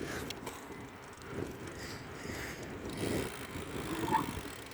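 Bicycle rolling along under a rider: an uneven low rumble from the tyres and bike, swelling and easing.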